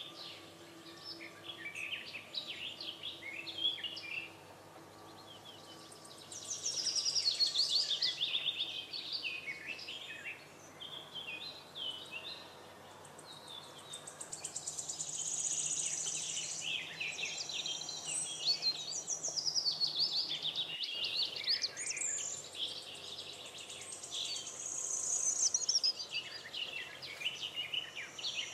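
Wild songbirds singing in repeated bouts of rapid, high chirps, with a steady high buzz in some of the gaps.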